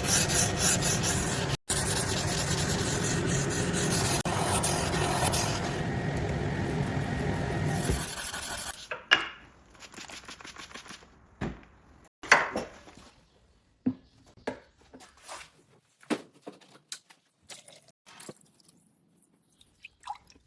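Abrasive grinding or rubbing on a steel blade: a steady harsh noise, broken once by a brief gap, that stops about eight seconds in. After it come scattered light knocks and clicks.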